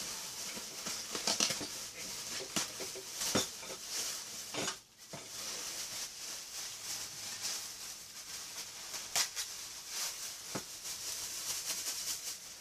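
Thin plastic bags rustling and crinkling as leafy greens are pulled out of them by hand, with many irregular sharp crackles.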